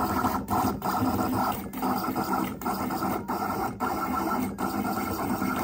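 Vinyl cutter cutting a design in white flock heat-transfer vinyl: its motors buzz steadily as the blade carriage and pinch rollers move, broken by several brief pauses between strokes.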